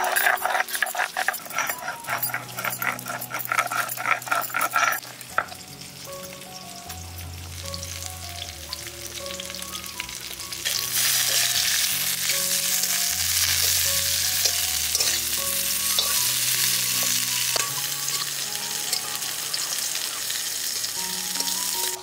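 Rhythmic scraping strokes of a stone roller grinding on a stone slab (shil-nora) for the first five seconds or so, stopping abruptly. About eleven seconds in, a steady sizzle starts as cauliflower florets fry in hot oil in a wide pan, and it continues to the end.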